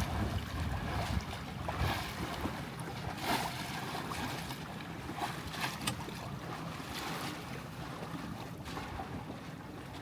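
Water rushing and splashing against a Catalina 22 sailboat's hull under sail, with irregular slaps of small waves, and wind buffeting the microphone, heaviest near the start.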